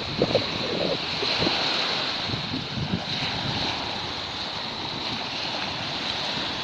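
Small sea waves breaking and washing up on a sandy beach, a steady surf hiss, with wind rumbling on the microphone.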